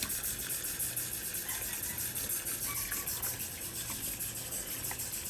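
Hot water running steadily from a tap into a sink.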